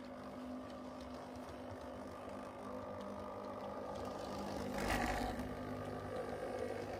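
Hornby OO gauge Class 390 Pendolino model train running along the track: a steady electric-motor whir with wheel rumble on the rails. It gets louder briefly about five seconds in as the end car passes close by.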